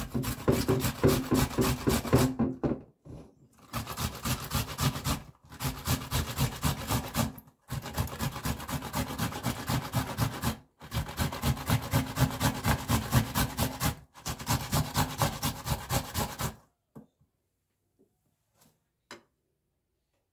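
Fresh tomatoes grated by hand on a metal box grater: rhythmic rasping strokes, about three a second, in runs of a few seconds with brief pauses. The grating stops about three-quarters of the way through.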